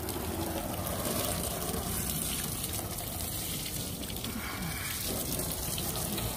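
Water spraying steadily onto a car's bodywork, rinsing the soap off.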